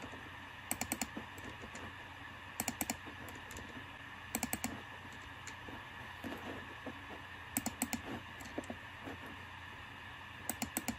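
Light plastic clicks of a computer mouse being worked, coming in short runs of four or five clicks about every two seconds, as the button and scroll wheel are used.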